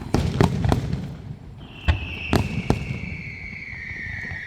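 Aerial fireworks going off: a quick run of sharp bangs in the first second, three more bangs around two to three seconds in, and a long whistle that starts about a second and a half in and slowly falls in pitch.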